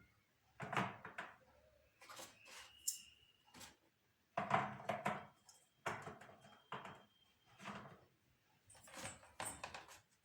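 Household items being handled and set down in a kitchen: a series of separate knocks and clatters, two of them followed by a brief ringing tone.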